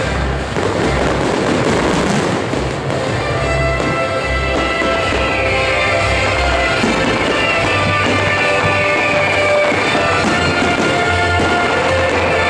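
Music for a musical fireworks display playing loudly. Over it, fireworks go off with many small sharp cracks and pops from crackling stars and shells.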